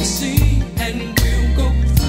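A soul/R&B song with a steady drum beat and a deep bass line.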